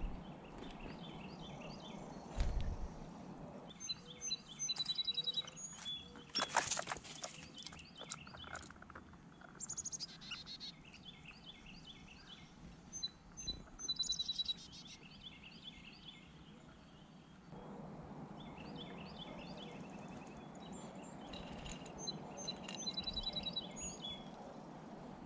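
Songbirds calling outdoors: repeated quick runs of high chirps and short trills, coming in several bouts. About six and a half seconds in there is a brief loud clatter of clicks.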